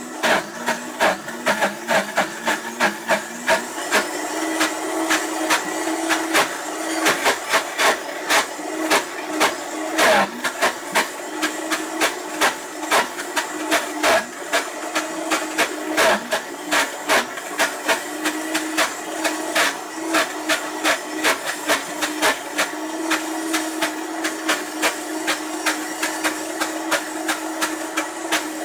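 Vitamix blender running steadily while it grinds coconut flakes into coconut butter: a constant motor hum with fast, irregular knocking and clicking, several times a second, from the thick mixture in the jar.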